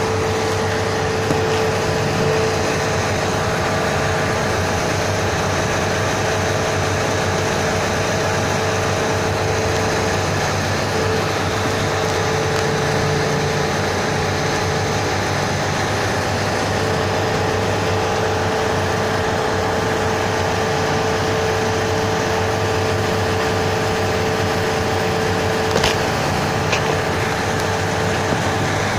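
Steady drone of machinery running nearby, a constant hum held at a few fixed pitches, with a couple of light clicks near the end.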